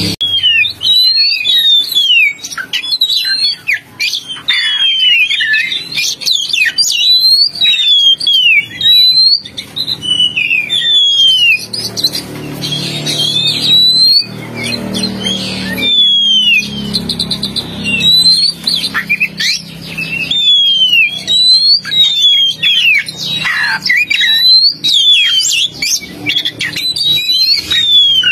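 Oriental magpie-robin singing: a fast, continuous string of loud whistled notes that slide down and up, mixed with short chattering calls, played as a lure recording.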